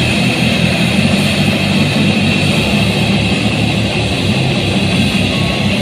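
Loud rock music with electric guitar: the instrumental intro of a song, before the vocals come in.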